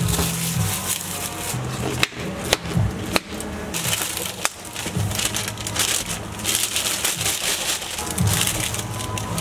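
Thin plastic wrap crinkling as it is handled around plastic takeout cups, with several sharp clicks, about two to four and a half seconds in, as clear plastic dome lids are snapped onto the cups.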